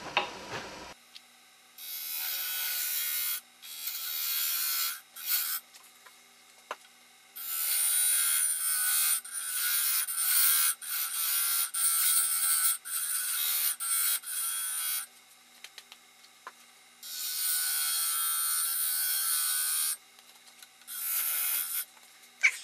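A parting tool cutting into a spinning wooden blank on a woodturning lathe: a hissing, scraping cut that comes in repeated passes, from under a second to several seconds long, with short pauses as the tool is eased off. A faint steady hum from the lathe runs underneath.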